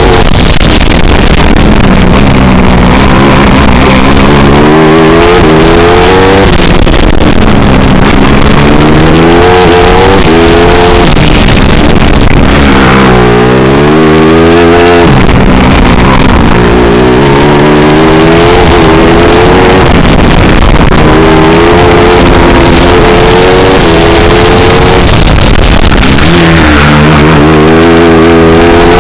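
Loud on-board sound of a 250 cc four-stroke racing kart engine at speed. Its pitch climbs and falls over and over as the throttle opens and closes through the corners, with a sharp drop and quick climb back about thirteen seconds in.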